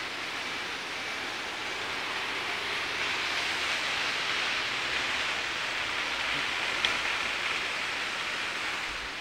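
Steady rushing outdoor noise from the town below, swelling a little midway, with a single short click about seven seconds in.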